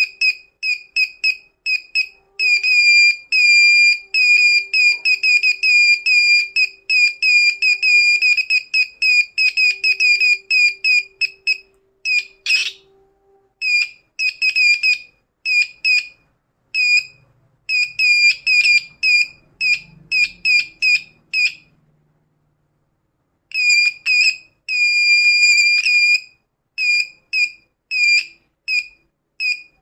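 Small piezo buzzer of a homemade wireless AC line tester beeping a high tone in quick, uneven pulses of about four a second, now and then holding a steady tone for about a second, as its coil antenna is held to a soldering iron and its mains cord: the tester is picking up the live AC. It stops for about a second and a half near the end, then starts beeping again.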